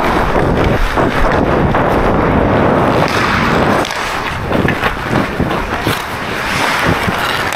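Wind buffeting the microphone as a hockey player skates at speed, with ice-skate blades scraping and carving the ice in irregular strides.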